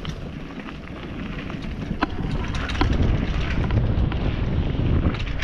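Wind buffeting the microphone and mountain bike tyres rolling fast over a dirt and gravel trail, with a few sharp clicks and rattles about two and three seconds in. The noise grows a little louder after about two seconds.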